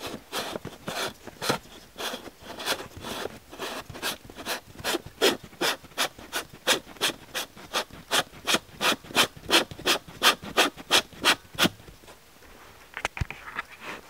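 Rhythmic rubbing strokes of a hand on a surface right next to the camera, about two a second at first, then speeding up to about three a second and growing louder, stopping suddenly near the end. A single dull thump and brief rustling follow.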